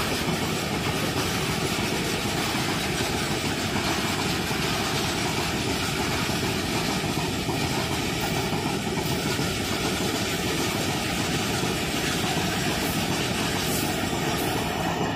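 A long Indian Railways freight train of loaded open wagons passing close by: a steady loud rumble and rush of steel wheels on rail.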